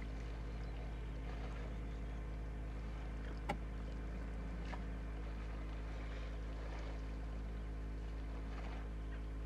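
Steady low mechanical hum, with one sharp click about three and a half seconds in.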